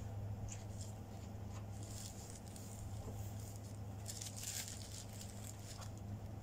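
Soft footsteps and the rustle of fabric curtains being pulled and pushed aside, loudest about four to five seconds in, over a steady low hum.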